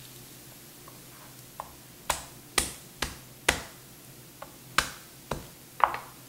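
Knife chopping garlic cloves on a cutting board: about seven sharp, irregular chops.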